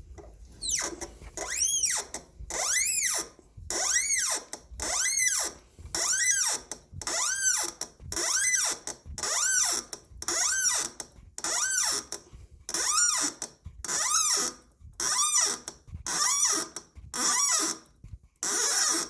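A thread tap squealing as it is worked by hand into brass, about one squeal a second, each rising and then falling in pitch as the tap is turned.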